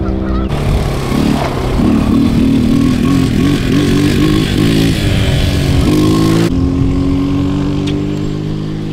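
A small quad ATV's engine running as it is ridden, its pitch wavering up and down. It stops abruptly about two-thirds of the way through, leaving a steady hum whose pitch slowly rises.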